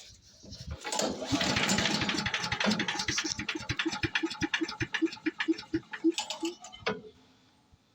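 Small gasoline engine of a Champion 3-inch wood chipper being pull-started, its flywheel freshly freed of jammed debris: a burst of cranking noise, then an even run of chuffs, about four or five a second, that fade and stop after a few seconds without the engine running on.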